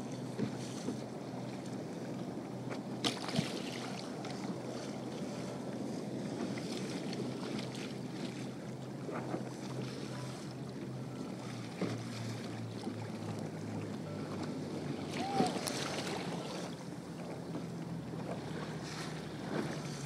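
Choppy sea water slapping and splashing around a kayak, with wind buffeting the microphone. A few sharper slaps stand out, the loudest about fifteen seconds in.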